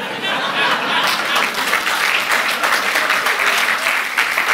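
Audience applauding, a dense patter of many hands clapping that swells early and holds steady.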